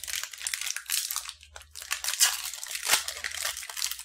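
Snack wrapper crinkling and tearing as it is opened by hand, with a couple of sharper crackles in the second half.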